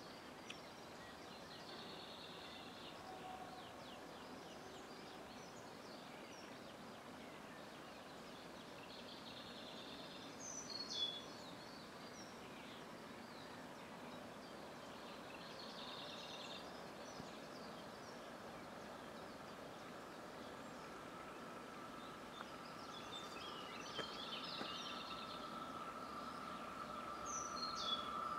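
Songbirds sing short phrases every few seconds over a quiet countryside background. In the last several seconds an approaching electric freight train comes in as a steady tone that grows slowly louder.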